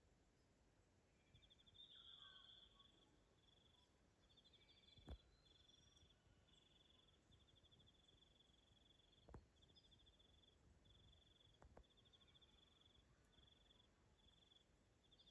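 Faint high, pulsed insect chirping, like a cricket, repeated in short runs at one steady pitch, starting about a second in. A few soft clicks, the sharpest about five seconds in, and faint bird chirps near the start.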